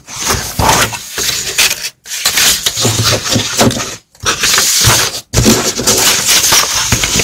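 Close, crackling rub and rustle of a sheet of paper being handled and brushed by a hand, broken by three brief dropouts to silence.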